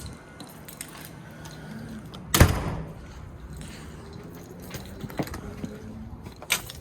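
A door banging shut about two and a half seconds in, then a few light clicks and a second sharp knock near the end.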